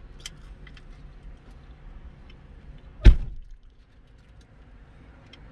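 A car door slammed shut: one heavy thump about three seconds in, heard from inside the car's cabin.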